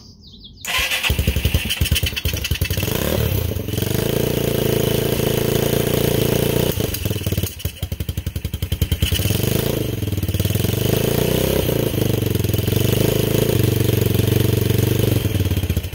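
Small motorcycle engine that has not run in ten years firing up about a second in and running, its revs rising and falling. About halfway through it stumbles and sputters for a moment, then picks up and runs on.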